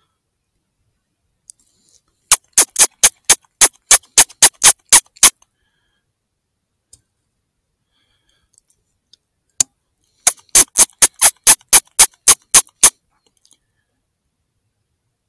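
Two quick runs of about a dozen sharp mechanical clicks each, about four a second, with a single click between them, made close to the thermal riflescope's own microphone, typical of its control knob or buttons being worked.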